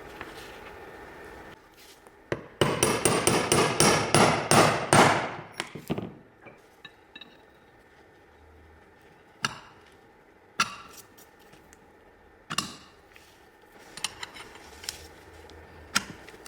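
Hammer blows: a quick run of about a dozen strikes, roughly four a second, then single knocks spaced a second or two apart.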